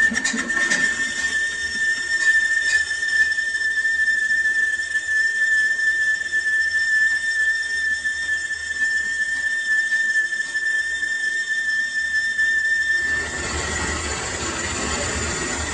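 Metal-cutting lathe giving a steady, high-pitched whistling squeal, typical of the cutting tool singing against the workpiece during a cut. It stops abruptly about 13 seconds in, leaving the duller running noise of the machine.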